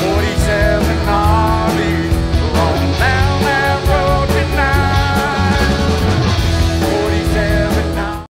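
Live rock band playing electric guitars, bass and drums, with a bending, wavering lead melody over steady cymbal beats. The music cuts off abruptly at the end.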